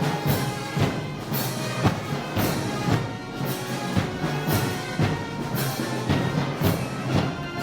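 Festival band music: brass and wind playing sustained tones over a steady heavy drum beat, about two strokes a second.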